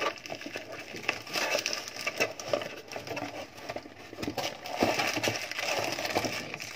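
Plastic packaging around a laptop charger crinkling and rustling as it is handled, with scattered small clicks and crackles.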